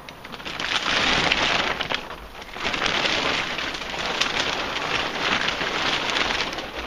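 Crackling rustle of the boat's plastic cover brushing against the camera as it is pushed through underneath.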